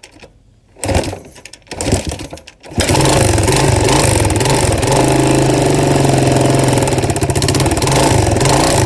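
Four-wheeler (ATV) engine cranked twice in short bursts, catching about three seconds in and then running steadily. The running engine carries a heavy rod knock from a worn connecting-rod bearing.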